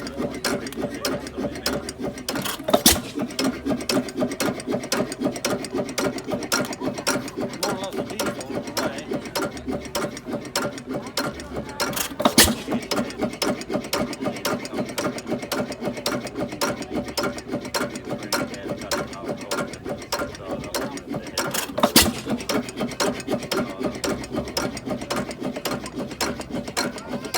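1911 Woodpecker stationary engine running, a fast continuous mechanical clatter from its moving parts. Three much louder sharp cracks stand out over the clatter, evenly spaced about nine or ten seconds apart.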